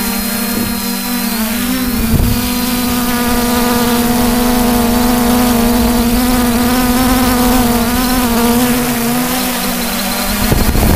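3DR IRIS+ quadcopter's motors and propellers, heard from the drone's own camera, giving a steady buzzing hum that wavers slightly in pitch during an emergency landing after throttle control was lost. Near the end come a few sharp knocks as it comes down onto the dirt.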